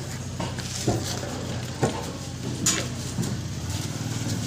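Metal scrap parts being handled and loaded on a truck bed, with about five separate clanks and knocks and one brighter metallic clink a little before the three-second mark, over a steady low hum.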